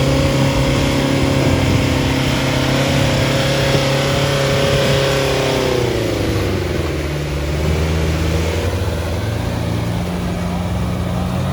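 Off-road vehicle engine held at high revs, its pitch steady, then dropping about six seconds in and settling at a lower speed.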